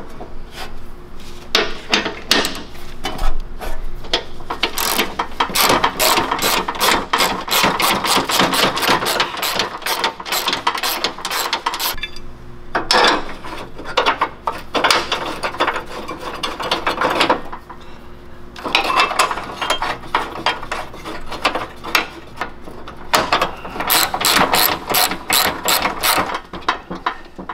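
Hand ratchet clicking rapidly as it drives a T45 Torx bolt into a bracket, in several long runs with short pauses between them.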